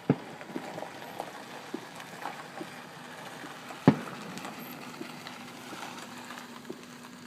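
Fireworks going off: two loud booms about four seconds apart, the second one louder, among scattered smaller pops and crackles.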